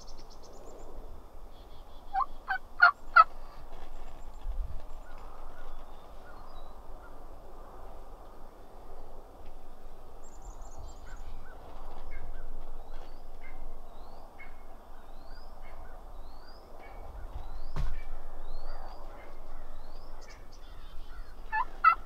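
A wild turkey gobbler gobbling: a loud, rapid rattling gobble about two seconds in and another at the very end, over a steady low hiss.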